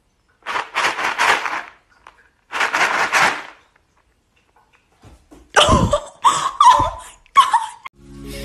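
Two breathy hissing bursts, then a domestic cat meowing four times in quick succession, each call falling in pitch.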